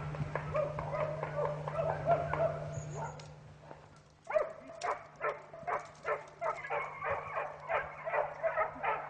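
Hunting hounds baying in a run of quick barks while driving wild boar. The barking fades briefly about three to four seconds in, then resumes at about three barks a second.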